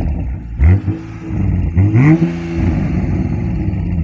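2020 Toyota Supra's turbocharged 3.0-litre BMW inline-six on its factory exhaust in normal mode, revved twice while standing still, rising and falling in pitch each time, then settling to a steady idle.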